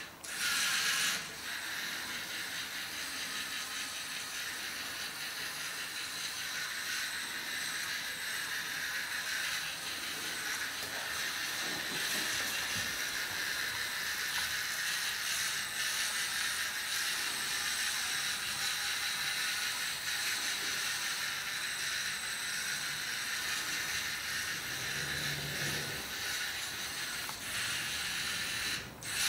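LEGO Mindstorms NXT robot's servo motors and gear trains whirring steadily as the robot drives, a high, even mechanical hiss. It grows briefly louder about a second in and again near the end.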